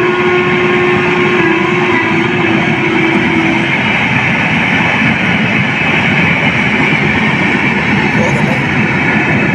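Long passenger train passing at speed: the steady rush and rumble of its coaches running on the track. A steady held tone sounds over the first three and a half seconds, then stops.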